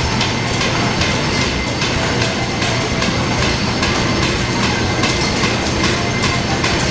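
Belt-driven line-shaft machine shop running: flat belts running over overhead pulleys with a steady rhythmic clicking, about three a second, over the hum of the line shaft and its electric motor.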